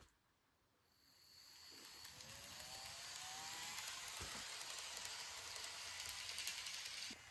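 Kato model Amtrak ALC-42 locomotive running along the track with its passenger cars: a small electric motor whining, rising in pitch as the train picks up speed, over the rattle of wheels on the rails. The sound builds from about a second in and cuts off just before the end.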